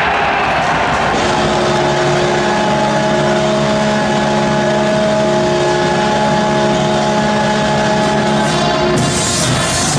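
Arena goal horn sounding one long, steady multi-tone chord from about a second in until near the end, over crowd noise, signalling a goal scored.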